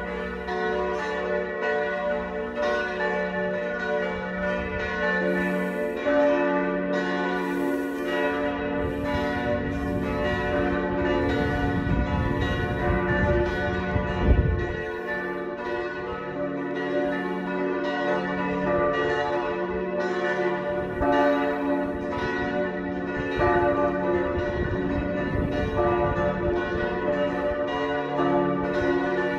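The bells of a church tower ring together in a continuous peal, several pitches struck over and over. A brief low rumble rises about halfway through.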